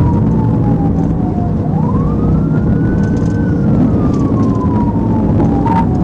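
Police car siren on a slow wail: falling in pitch, sweeping back up about two seconds in, then falling again. Underneath is a heavy, steady low rumble of road and engine noise at highway speed.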